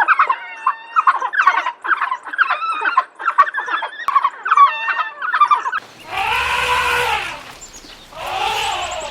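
Poultry calling in a rapid, dense chatter, then two long bleats with an arching pitch, about six and eight seconds in.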